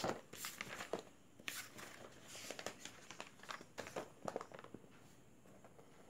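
Paper pages of a paperback book being leafed through and pressed flat by hand: a string of short papery rustles and swishes that thin out near the end.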